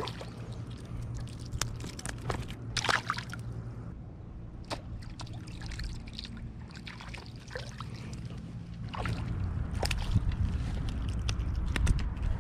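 A small sunfish splashing and thrashing in the shallows as it is hauled in on a hand line, then wet handling sounds as it is lifted out and gripped. Sharp splashes come at scattered moments, with a cluster about three seconds in, and the sound grows louder about nine seconds in.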